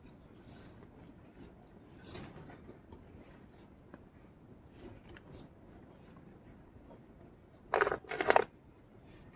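Faint scratching and rubbing handling sounds, then two short, loud scrapes in quick succession near the end.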